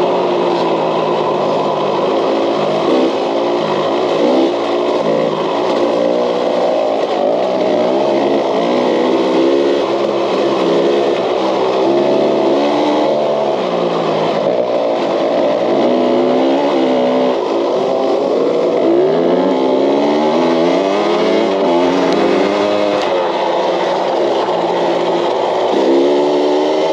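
KTM dirt bike engine under race throttle, its pitch rising and falling again and again as the rider rolls on and off the throttle and shifts, with the rush of riding over the track underneath.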